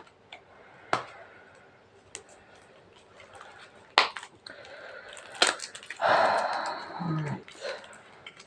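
Small toy packaging being handled and opened by hand: a few sharp plastic clicks, then a rustling, crinkling stretch near the end.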